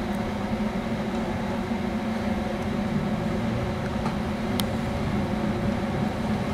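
Sapporo city tram's sasara bamboo-broom snowplow car running slowly, a steady low mechanical hum and rumble, with a single sharp click a little past halfway.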